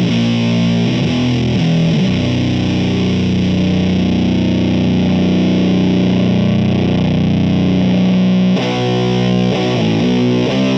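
Electric guitar through a Does It Doom Elder God fuzz pedal (silicon Fuzz Face and Green Russian fuzz in one) into the clean channel of a Mesa/Boogie amp. A fuzzy riff plays, then a chord is held and rings out for several seconds, and the riffing picks up again near the end.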